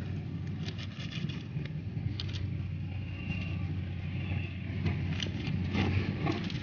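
An engine running steadily in the background, a low even hum. Short scrapes and clicks from hands pushing woody stem cuttings into bagged soil sound over it.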